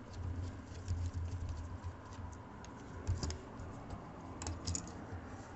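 Small screwdriver working screws out of a netbook's plastic shell: faint scattered clicks and ticks of metal on screw and plastic, with a small cluster about three seconds in and another past four seconds.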